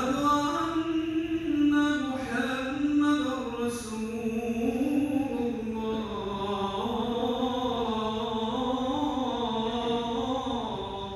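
One man's voice chanting an Islamic recitation in long, slowly wavering melodic phrases that rise and fall, sung out over a large echoing prayer hall.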